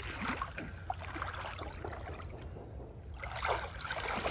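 Creek water sloshing and dripping around a wader's hands as he reaches under the surface. A little past three seconds in, it turns to a louder stream of water pouring and splashing off a large mastodon tooth lifted out of the creek.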